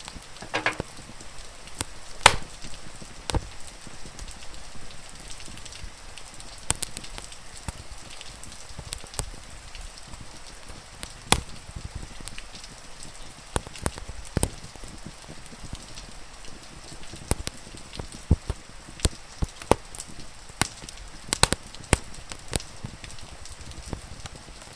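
Wood fire crackling, with sharp pops scattered irregularly over a steady hiss of falling rain.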